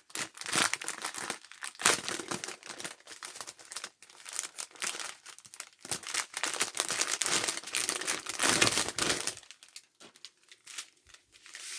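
Small plastic packets of diamond-painting drills being handled and opened, crinkling and rustling in quick irregular bursts that die down about two seconds before the end.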